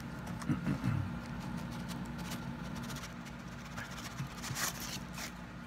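Handling noises from a card and a small cardboard box being picked up and turned over: a few soft clicks and rustles over a steady low hum.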